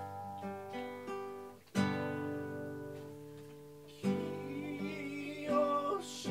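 Acoustic guitar playing slow, ringing chords as accompaniment to a hymn, with new chords struck about two seconds in and again about four seconds in, each left to die away.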